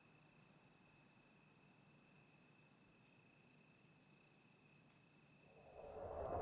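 Cicada chirping in a fast, steady high-pitched pulse, about ten pulses a second. Near the end a rising whooshing noise swells in beneath it.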